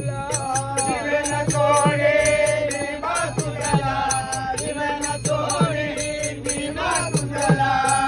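Men singing a Marathi devotional bhajan together, with small brass hand cymbals (taal) struck in a steady, ringing beat.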